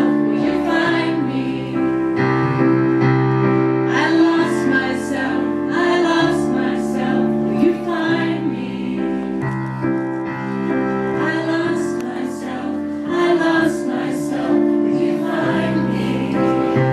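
A woman singing at an electric keyboard while a crowd of people sings along with her.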